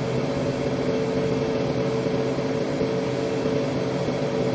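Steady mechanical hum of a machine running in a wheel-rim repair shop, holding a constant pitch with a clear steady tone.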